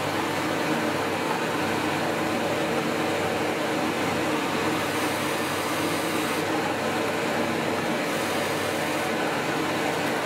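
Drill press running with a Forstner bit boring a shallow round recess into wood, with the dust-extraction hose at the bit sucking steadily; a loud, even noise with a low hum.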